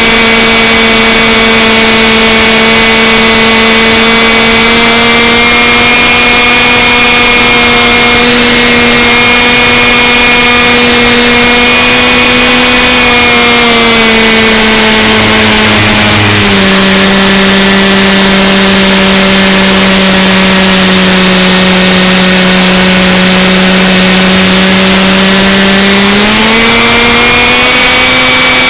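An engine running loud and close at a steady speed, with a strong droning pitch. About halfway through it settles to a lower pitch for some ten seconds, then rises back near the end.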